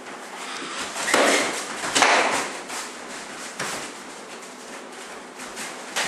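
Kickboxing strikes landing: a run of slapping thuds from gloves and kicks hitting, the loudest about one and two seconds in, with lighter taps between.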